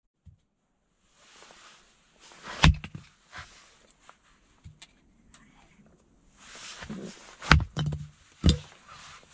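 Hatchet splitting kindling: three loud, sharp strikes into wood, one about a third of the way in and two close together near the end, with lighter knocks and rustling between them.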